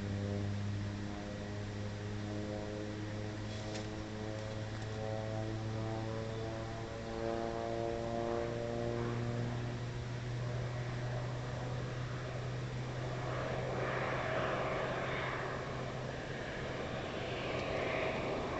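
Air Tractor AT-502 turboprop crop duster flying by low: a steady propeller drone whose pitch shifts as it passes. In the last few seconds a rushing turbine hiss grows louder as the plane comes in again.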